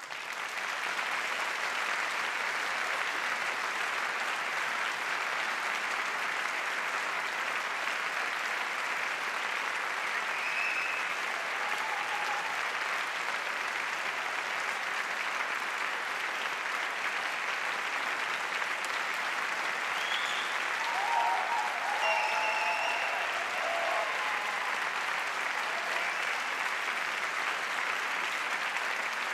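Theatre audience applauding steadily at the end of a dance performance, starting suddenly out of silence. A few short cheers rise above the clapping partway through.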